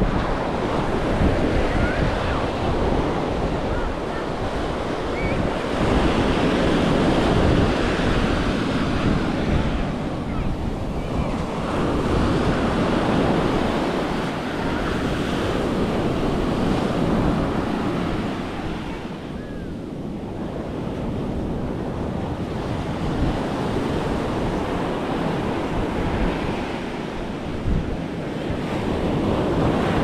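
Atlantic surf breaking close by and washing up the sand, swelling and easing as each wave comes in. Wind buffets the microphone underneath.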